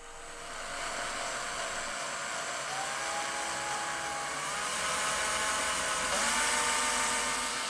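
Electric drill spinning a handmade miniature V12 model engine over, a steady whir with a mechanical whine. The whir builds over the first second, and the pitch steps up twice, about three and six seconds in, as the drill speeds up.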